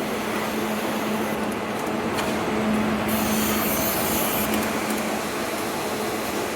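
Steady machinery noise of an automotive body-shop production line, with a constant low hum and a short burst of hissing air about three seconds in.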